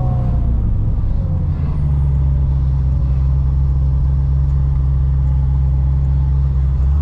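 Supercharged LS9 V8 of a 1000 hp C6 Corvette ZR1 running at steady revs, a deep even drone. A faint falling whine fades out in the first second and a half.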